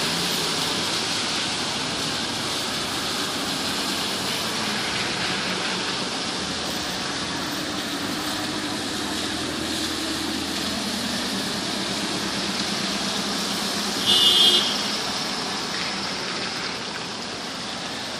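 Traffic on a wet road: a steady hiss of tyres on rain-soaked pavement with the hum of passing car engines. A brief, loud, high-pitched sound stands out about fourteen seconds in.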